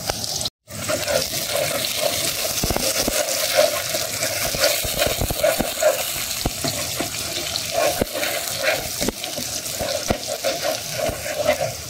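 Sliced onions and whole spices sizzling and crackling in hot oil, stirred with a wooden spatula: the onions are being fried golden brown. The sound cuts out briefly about half a second in.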